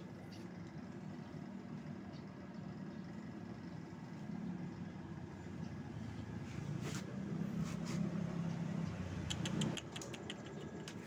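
A low, steady rumble, louder in the second half, that stops abruptly near the end. Just before it stops comes a quick run of clicks, dry cat kibble rattling in a small plastic tub.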